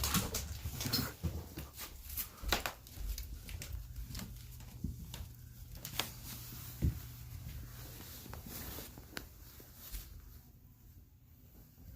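Irregular rustling, scuffling and light taps of a cat pouncing on and handling a caught small bird, busiest in the first half and thinning out toward the end.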